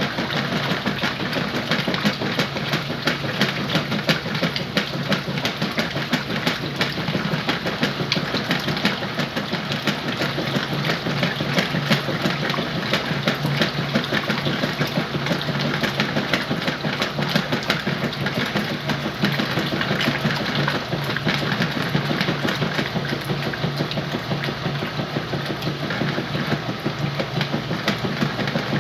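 Whirlpool washing machine running with a sheets-and-pillows load: a steady motor hum under a dense, fast, irregular rattle.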